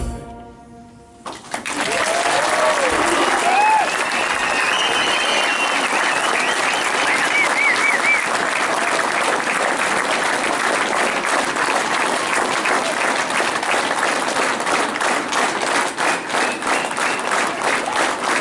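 Music stops and an audience breaks into applause about a second and a half in, with shouts and whoops over the clapping for the first several seconds.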